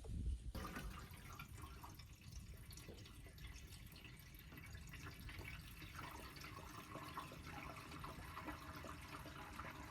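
Ratchet torque wrench clicking faintly and irregularly as the blade tensioner on a portable band sawmill is tightened.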